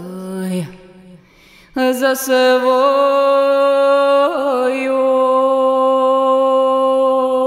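A woman singing unaccompanied: a short falling note, a pause of about a second, then one long held note with a brief waver about halfway through, dropping away at the very end.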